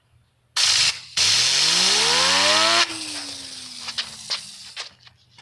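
A fidget spinner driven by a loud rush of air, its whine rising steeply as it speeds up. The air stops about three seconds in and the spinner's whine slowly falls as it coasts down, followed by a few light clicks.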